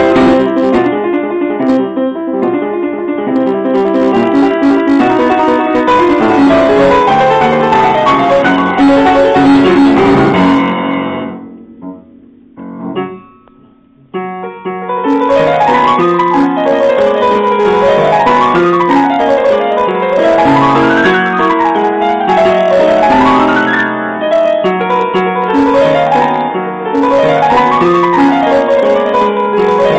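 Steinway & Sons upright piano played solo, with its upper front panel off and the hammers exposed. Loud, busy passages die away about eleven seconds in, leaving a few soft notes, then the playing resumes with fast rising-and-falling runs up and down the keyboard.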